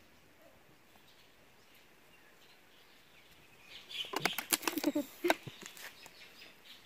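Thin plastic water bottle crackling and clicking in a quick burst of taps and crinkles as a monkey grabs and tugs at it, starting a little past halfway.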